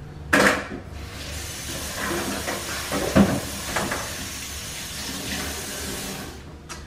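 Aerosol canola cooking spray hissing: a short first squirt, then one long steady spray of about five seconds.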